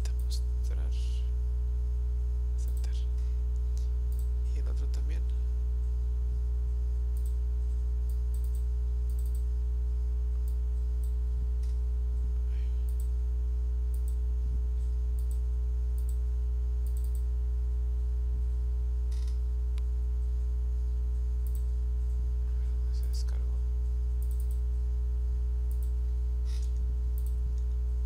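Steady low electrical mains hum with a ladder of overtones, loudest throughout, with scattered computer mouse clicks over it.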